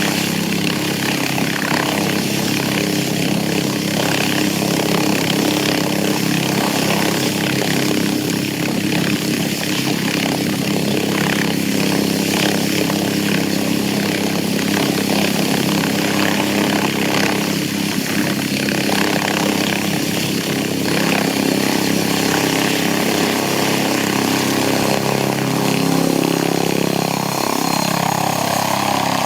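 Boeing CH-47 Chinook tandem-rotor helicopter running loud and steady, its turbine engines and rotors droning, with a shift in pitch near the end.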